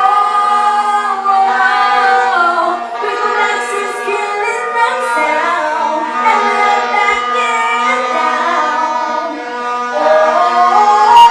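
A reggae record playing at a sound clash: a singer's melodic vocal over a steady held backing note.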